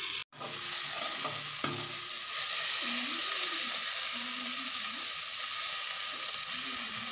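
Sliced onions frying in oil in a wok, sizzling steadily, while a slotted metal spoon stirs them against the pan. The sizzle cuts out for an instant just after the start, then grows louder about two seconds in.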